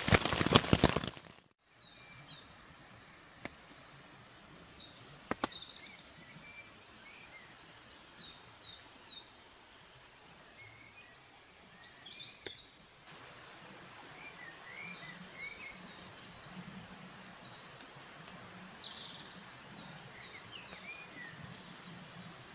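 Heavy rain drumming on a tent for about the first second and a half, then cut off abruptly. After that, woodland birds sing with repeated chirps and whistled phrases, growing busier about 13 seconds in, with two sharp clicks early on.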